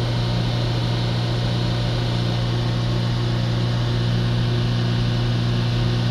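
Renault Trafic's 1.6 diesel engine held at a steady raised speed of about 3000 rpm, a constant even drone heard from inside the cab. The revs are being held to burn soot out of the diesel particulate filter after a cleaning-fluid flush.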